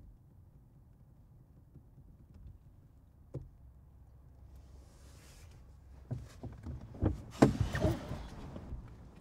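Clicks, knocks and clatter of people moving about inside a parked car's cabin, over a low rumble: one click about three and a half seconds in, then a run of clunks from about six seconds, loudest a little past seven.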